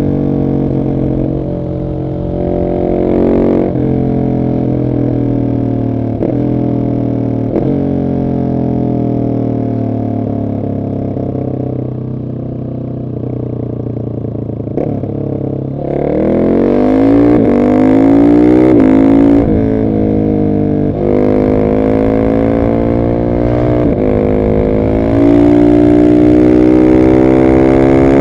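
Husqvarna 701 SM's single-cylinder engine through a decatted Arrow exhaust, under way: for the first half the engine speed slowly falls with a few short blips, then from about halfway it accelerates hard, the pitch rising and dropping back at each of three or four upshifts, loudest near the end.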